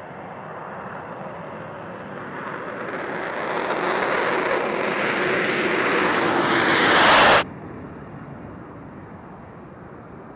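F-22 Raptor's twin Pratt & Whitney F119 turbofans on the takeoff roll and liftoff, a rushing jet noise that grows steadily louder. It cuts off suddenly about seven seconds in, leaving a quieter, steady jet noise.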